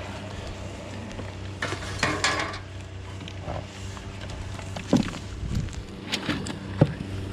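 Scattered knocks and clattering, like metal and wood being moved and bumped around pig feeders, over a steady low hum. There is a scraping rustle about two seconds in and sharp knocks in the last few seconds.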